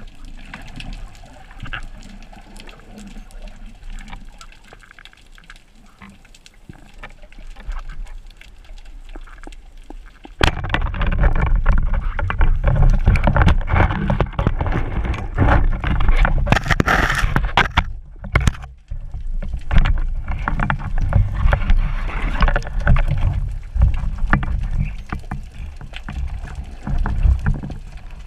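Underwater sound picked up through a camera's waterproof housing: faint crackling and scattered clicks at first, then a sharp snap about a third in, followed by loud rushing, bubbling water noise full of clicks and knocks as the diver moves through the water.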